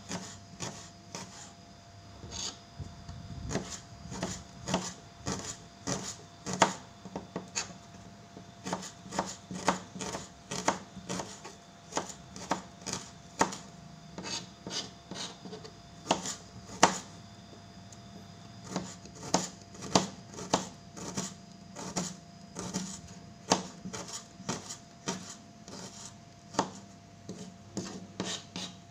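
Knife slicing shallots on a plastic cutting board: a long run of sharp taps of the blade on the board, irregular, about two a second with brief pauses.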